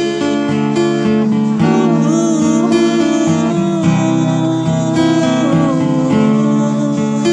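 Acoustic guitar strummed in steady chords. From about two seconds in until about six seconds in, a wordless vocal line wavers over the chords.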